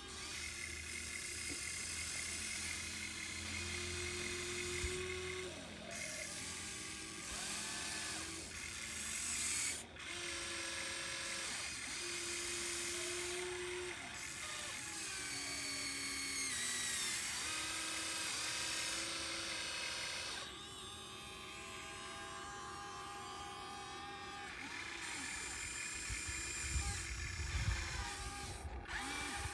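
Whine of an RC model excavator's small electric motors and hydraulic pump, its pitch rising and falling as it works and changing abruptly every few seconds.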